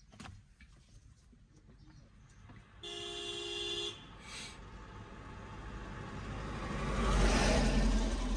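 A vehicle horn honks once, a steady tone lasting about a second, heard from inside a moving car. Over the last few seconds the car's engine and road noise swells to a low rumble.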